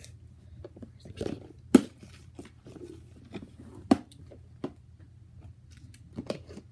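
Clear plastic slime tub being handled on a plastic storage box as slime is put back in and the lid fitted: a few sharp plastic knocks and clicks, the loudest about two seconds in, another near four seconds, and more as the lid goes on near the end.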